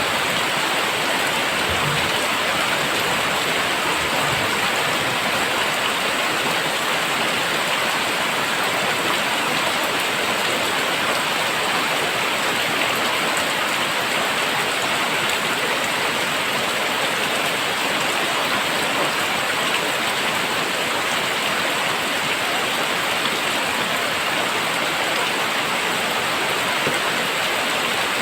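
Very heavy rain pouring down, a steady dense hiss of drops hitting surfaces.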